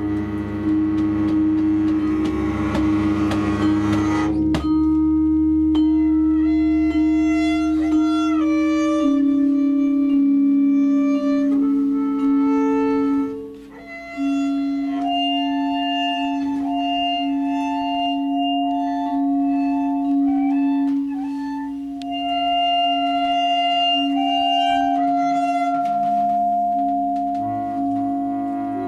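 Acoustic free improvisation by a small instrumental group: long held notes that shift in pitch step by step. A dense low rumbling wash underneath stops abruptly about four seconds in, and the music briefly drops away around halfway through.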